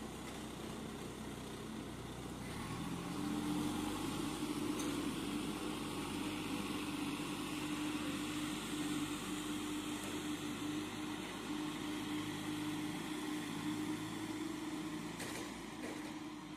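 Manitou 735 telehandler's diesel engine running as the machine drives off. About three seconds in the engine speeds up and gets louder, with a steady whine held over it, and the sound fades near the end as the machine moves away.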